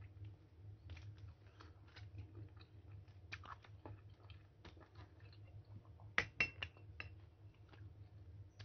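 A person chewing mango close to the microphone: irregular wet clicks and smacks of the mouth, a few louder ones about six seconds in, over a low steady hum.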